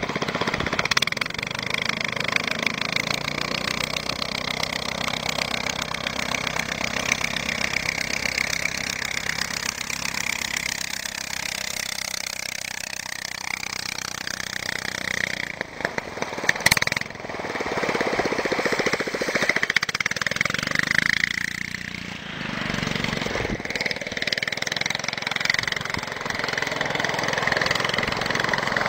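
Home-built aerosled's 15-horsepower Forza engine and large pusher propeller running hard as the sled skims across a meltwater puddle on the plane. The sound breaks off briefly with a click about halfway through, then carries on, rising and falling as the sled moves about.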